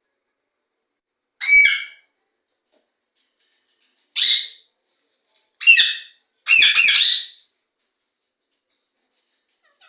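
Parrots squawking: four short, harsh calls spaced a second or more apart, the last one longer.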